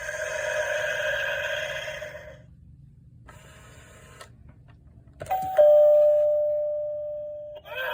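Gemmy animated spider doorbell prop sounding a two-note electronic ding-dong chime about five seconds in: a click, a short higher note, then a lower note held and fading. Before it, the prop's previous sound effect fades out about two seconds in.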